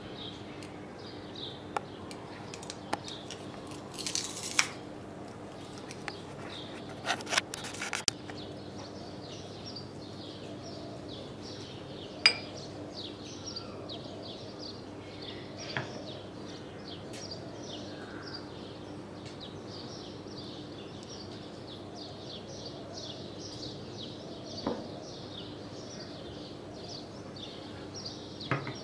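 A hand garlic press and a spoon clicking and clinking against a small ceramic bowl in scattered single knocks, the sharpest about 12 seconds in, over continuous rapid bird chirping.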